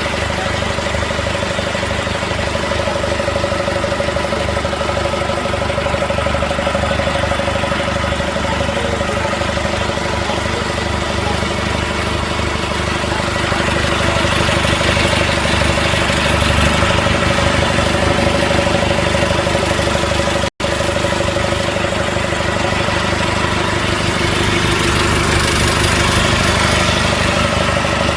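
Off-road vehicle engine idling steadily, with a brief cut-out about twenty seconds in.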